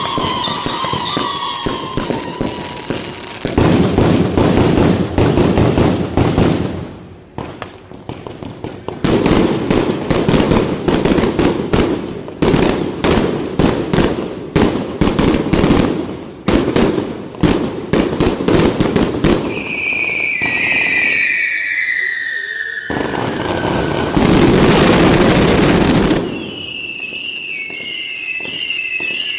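Fireworks display: dense volleys of rapid cracks and bangs from bursting shells, broken by whistling fireworks whose tones glide downward. A loud hissing rush comes in past the two-thirds mark, and warbling whistles sound near the end.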